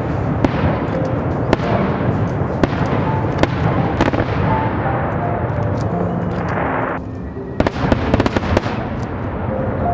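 Fireworks display: dense crackling and popping with many sharp bangs, easing briefly about seven seconds in before a fresh volley of cracks.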